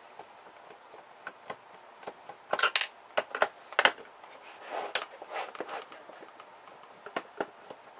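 Irregular sharp clicks and knocks of a screwdriver working at the screws of a small plastic-cased device, with a cluster of louder clacks a few seconds in and some scraping around the middle.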